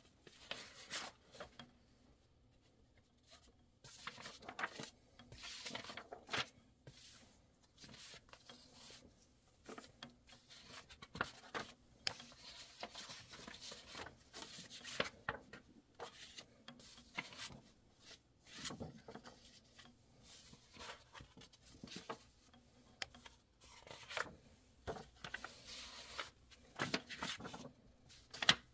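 Paper sales brochures being leafed through by hand: sheets sliding and rustling against each other, with light taps and rubs coming in irregular spells.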